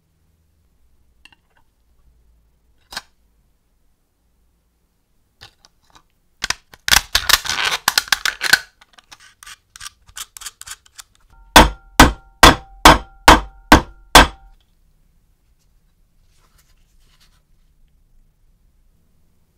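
A short burst of metallic clattering, then seven sharp, evenly spaced hammer blows on metal about half a second apart, each with a brief ringing tone, as an aluminium sheet is pressed into a bolted mould held in a vise to emboss the score digits.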